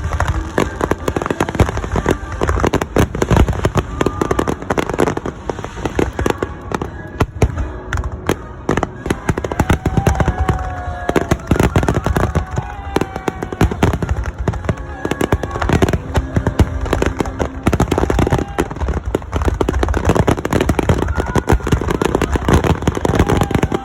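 Finale barrage of aerial fireworks: shells bursting in rapid, overlapping bangs and crackles without a break.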